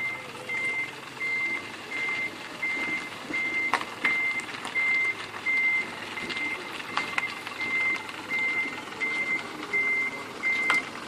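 Vehicle reversing alarm beeping steadily, a single high-pitched tone repeating about three times every two seconds, with a few sharp knocks in between.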